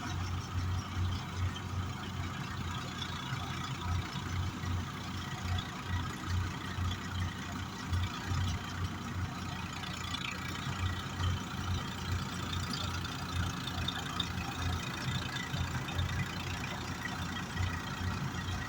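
Swaraj 855 tractor's three-cylinder diesel engine running steadily with a low, pulsing throb.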